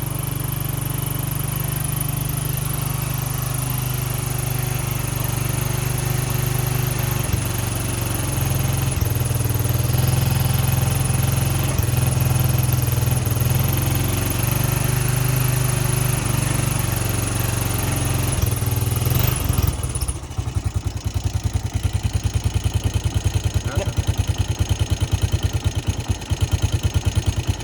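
ATV engine running steadily, then about two-thirds of the way in the note drops to a slower, pulsing idle. The owners take the rough running for fuel starvation, possibly a clogged fuel line or filter.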